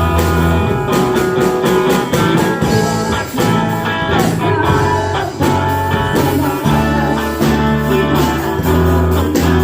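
A band playing an instrumental passage: guitar over a held bass line, with a drum kit keeping time.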